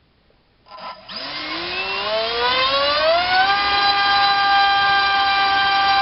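Rcinpower G2306 2200 kV brushless motor spinning a 6x4.5 propeller on 4S on a thrust stand: after a short blip about a second in, a whine rises in pitch for about two seconds as the throttle is opened, then holds at a steady high pitch at full throttle.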